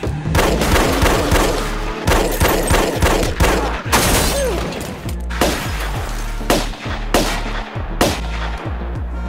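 A film shootout: many gunshots in quick, irregular succession, some in clusters, over a low, steady music score.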